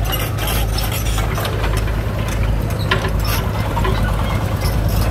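Diesel engine idling steadily with a low, even drone and light mechanical clatter, plus a sharper knock about three seconds in.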